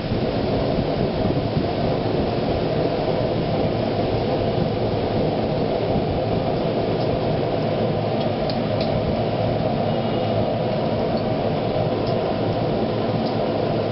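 A steady, even rushing noise, strongest in the low and middle range, with a few faint light clicks in the second half.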